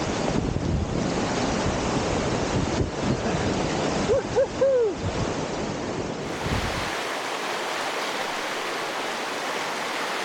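Creek water rushing over rapids, with wind buffeting the action-camera microphone; three short squeaky tones come about four seconds in. Around six seconds it gives way to a steadier, thinner rush of stream water.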